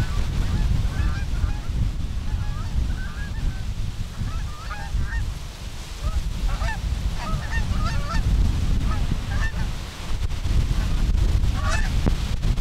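Flock of Canada geese honking, many short overlapping calls, with strong wind rumbling on the microphone.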